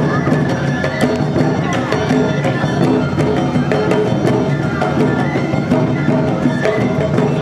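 Awa odori hayashi music: taiko drums and a kane bell striking a steady rhythm under a melody on bamboo flute (fue).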